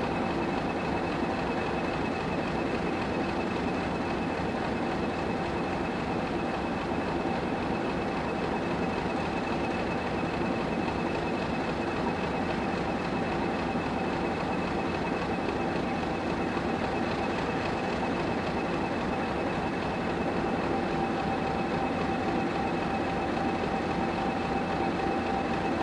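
British Rail Class 50 diesel locomotive 50027 'Lion' idling at a standstill. Its English Electric 16-cylinder engine runs steadily, with a steady whine of several held tones over the engine noise.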